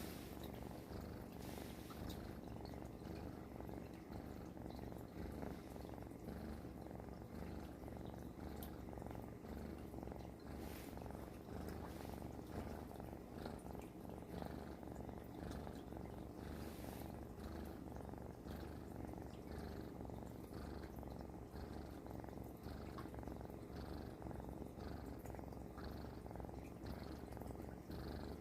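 Domestic cat purring steadily with a snore-like rumble, pulsing in a slow, even rhythm.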